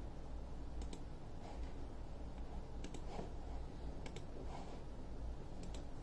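Steady low hum and hiss, with four faint, sharp double clicks spread irregularly through it.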